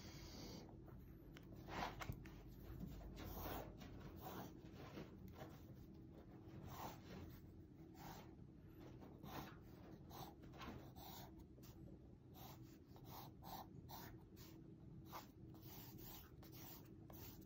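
Pencil strokes scratching on sketchbook paper, faint: short quick lines drawn one after another, about two a second, as wood-grain lines and slats are sketched.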